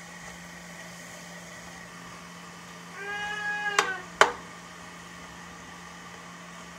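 A metal spoon stirring vegetables in a stainless steel pot: about three seconds in, a steady pitched squeal lasting about a second, then two sharp taps of the spoon against the pot.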